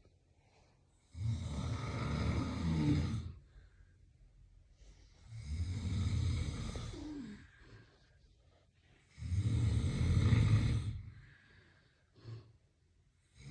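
A man snoring loudly: three long snores about four seconds apart, each lasting around two seconds.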